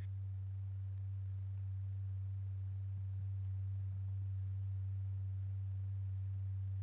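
A steady low pure tone, about 100 Hz with a faint overtone, held unchanged: the sine-wave excitation tone that vibrates a paper diaphragm strewn with lycopodium powder, at a frequency that sets the powder heaps rotating.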